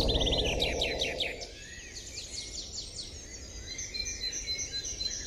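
Songbirds chirping: many quick downward-sweeping chirps, a fast trill at the start, and a run of evenly spaced short notes near the end. A low steady noise underneath fades out about a second and a half in.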